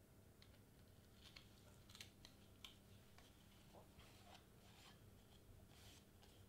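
Near silence, with faint scattered ticks and light rustles of cardstock pieces being handled and marked with a marker.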